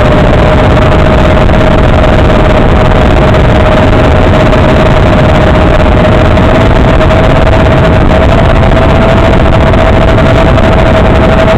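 FPV quadcopter's motors in steady cruising flight: a constant whine over loud, rushing wind noise, heard through the narrow, hissy audio of the analog video link.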